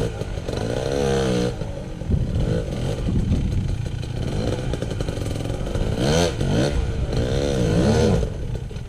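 Off-road motorcycle engine revving hard and letting off, rising and falling in pitch in bursts: once about a second in, then several quick rises and falls near the end.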